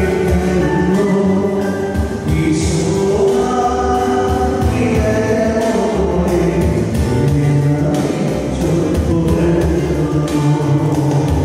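Choir singing gospel-style music.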